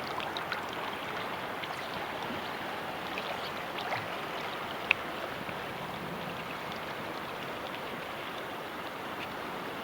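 River water rushing steadily, with one sharp click about five seconds in.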